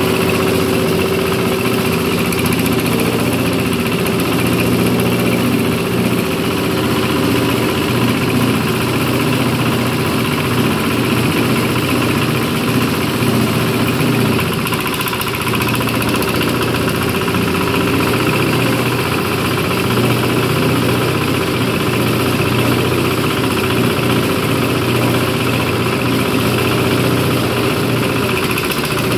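A powered coconut husk stripping machine running steadily as whole coconuts are pushed into it to tear off the husk.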